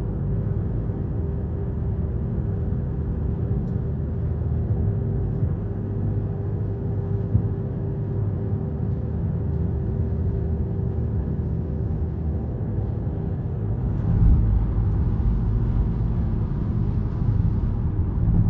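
Road noise inside a car cruising on a highway: a steady low rumble of tyres and engine with a faint steady hum. The rumble grows louder about three-quarters of the way through.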